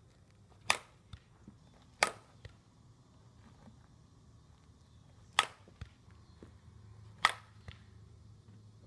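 Softball bat hitting front-tossed softballs: four sharp cracks, the first two close together and the last two a few seconds later, each followed about half a second later by a fainter knock.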